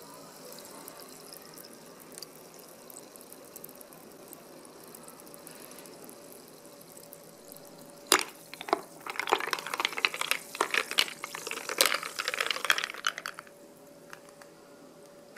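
Carbonated drink fizzing faintly in a glass with ice. About eight seconds in, a spoon stirs it, knocking and clinking against the ice and glass for about five seconds.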